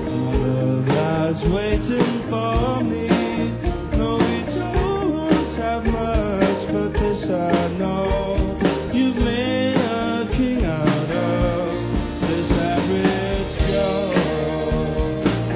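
Pop-rock band music with a steady drumbeat, playing a stretch of the song with no lyrics sung.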